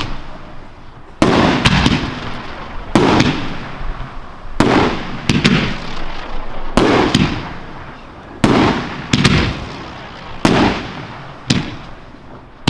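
Professional fireworks display: a string of sharp reports about once a second as comets and aerial shells are fired and burst, each trailing off in an echo.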